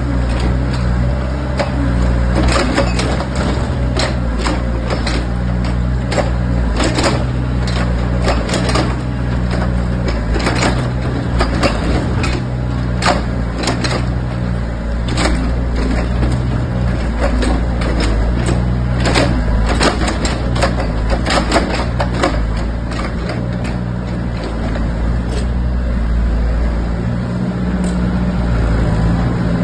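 Excavator's diesel engine running steadily, with many sharp knocks and clanks over it.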